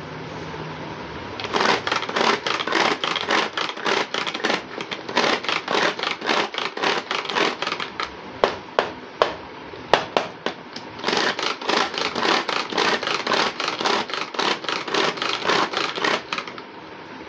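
Plastic pull-cord hand chopper being worked with quick repeated pulls on its string, each pull spinning the blades through onion, ginger, garlic and green chilli with a fast clattering rattle, several strokes a second. The rattling comes in long runs, with a short let-up of a few single sharp clicks near the middle.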